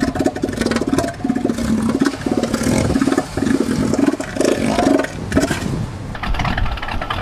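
Bull elephant seal calling: a deep, rapid train of pulses, engine-like, given in bouts of about a second with short breaks between them. This is the threat call that males use to assert dominance over rival males.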